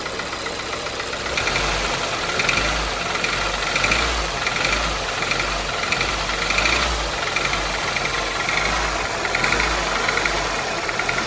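Toyota 1ZZ-FE 1.8-litre four-cylinder engine in a 2002 Corolla, running and brought up in revs about a second and a half in, with a pulsing knock repeating a little more than once a second. The owner takes the knock for timing chain noise, or else worn rod bearings; a new timing chain tensioner has not cured it.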